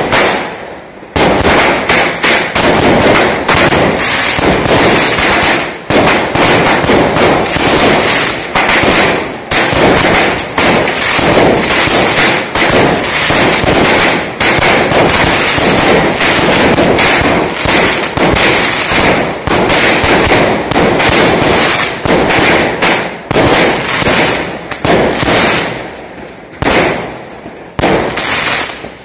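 Multi-shot consumer fireworks cake (repeating aerial battery) firing a rapid, nearly continuous barrage of launches and crackling star bursts, starting about a second in and thinning out near the end.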